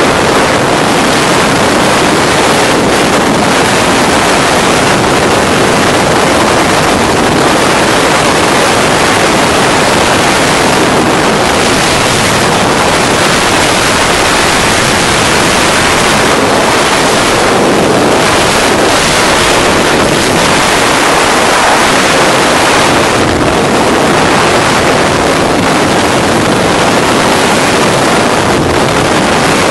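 Motorized hang glider (trike) in flight: loud, steady wind rushing over the onboard microphone, mixed with the drone of the engine.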